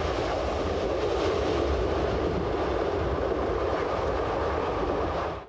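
Locomotive-hauled BLS passenger train running at speed: a steady rumble and roar of wheels on rail, heard from close beside the moving carriages. It fades out near the end.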